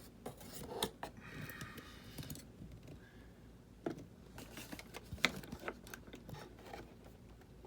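Handling noises from a foam RC jet model being moved about: scattered light clicks and knocks, with a brief soft rubbing sound about a second in.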